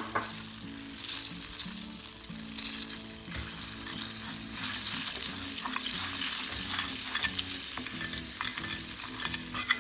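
Butter sizzling and foaming in a small stainless steel pan with ground red pepper, stirred by a metal spoon that clicks against the pan now and then. The sizzle grows stronger a few seconds in as the butter heats up to foaming.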